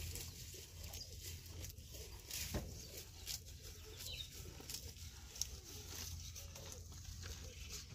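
Faint short low calls of domestic poultry, several close together in the second half, over light scattered ticks.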